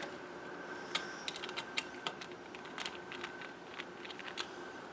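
Scattered light, irregular clicks and taps of a screwdriver working the terminal screw of a three-way light switch to free the common wire.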